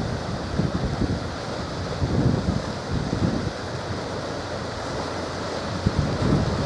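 Wind buffeting the microphone in irregular low gusts over a steady wash of wind and sea noise.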